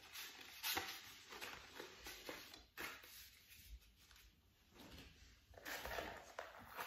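Paper and a thin card envelope rustling as they are handled and folded, in several short bursts with quieter gaps between.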